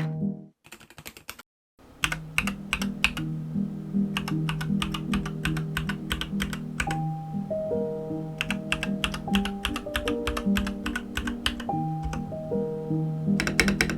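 Typing on an Aigo A100 mechanical keyboard with yellow switches: a rapid run of keystroke clacks that stops briefly about half a second in and resumes about two seconds in, over background music.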